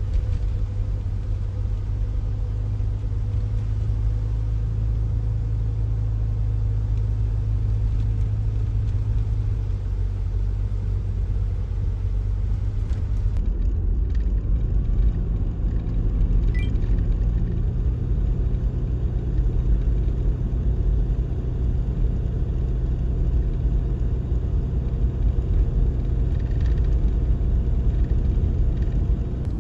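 A vehicle on the move: a loud, steady low rumble of engine and road noise with a faint constant engine hum, its character shifting slightly about halfway through.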